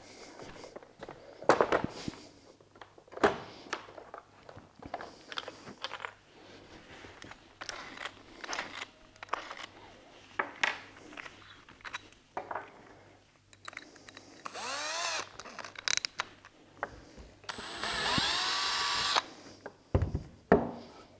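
Cordless drill run in two short bursts near the end, its motor whine rising as it spins up, drilling out the screw holes in a plastic rifle stock to take M5 screws. Around it, knocks and clatter of tools being picked up and set down on the bench.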